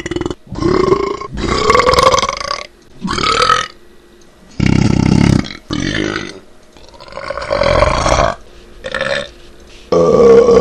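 A man burping over and over: about eight loud belches in quick succession with short pauses between them, each lasting from a fraction of a second to over a second.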